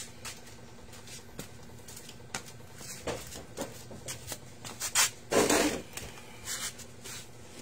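Close handling noises: scattered light clicks and taps, with a louder brief rustling scrape about five and a half seconds in.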